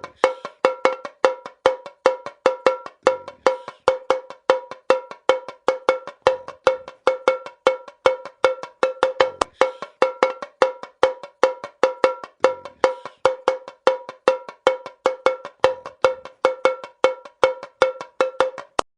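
A cowbell-type percussion bell struck in a fast, steady, syncopated samba-style rhythm, several ringing metallic strikes a second, with a faint low thud every few seconds.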